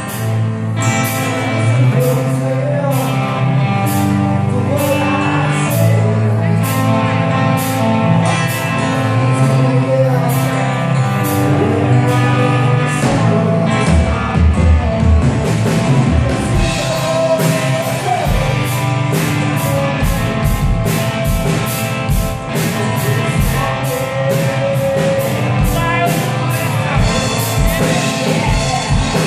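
Live rock band playing with singing and a steady beat; a heavier low drum and bass beat comes in about halfway through.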